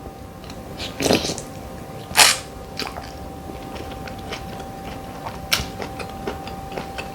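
Close-up eating sounds: chewing with frequent small wet clicks and smacks, and two louder bursts about one and two seconds in.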